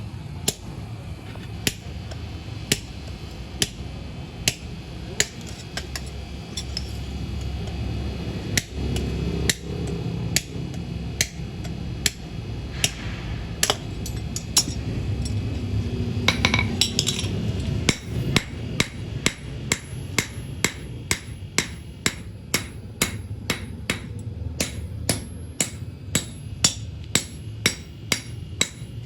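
Hand hammer striking steel from a truck leaf spring on an anvil as an axe is forged, each blow with a short metallic ring. The blows come about a second apart at first, then settle into a faster steady rhythm of about two a second, over a continuous low hum.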